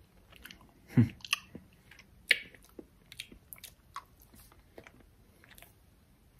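A person chewing a sweet with wet mouth smacks and small clicks. The loudest smacks come about one second and just over two seconds in.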